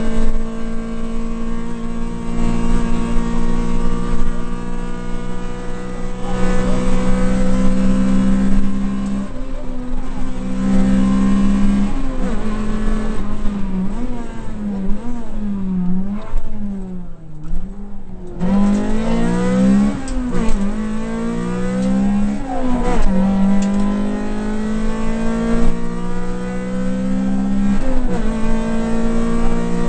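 Rally car engine at racing speed, heard from inside the cabin. The note climbs steadily for long stretches, then about halfway through it dips and rises several times in quick succession as the throttle comes off and back on, before pulling hard and climbing again.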